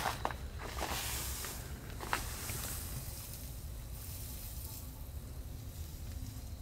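A few footsteps and crunches on a debris-strewn floor, the sharpest at the start and about two seconds in, followed by a soft rustling hiss, over a steady low rumble.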